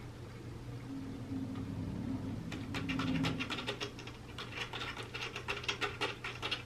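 Dry cat treats clicking and rattling inside a plastic Catit Senses 2.0 Food Tree slow feeder as a cat noses and paws at them, a quick run of sharp clicks starting about two and a half seconds in.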